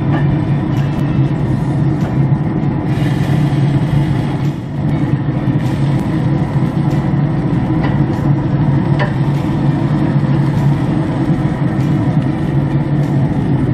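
Steady low hum of a Traeger pellet grill's fan running, with a few light clicks of metal tongs against the grill grate.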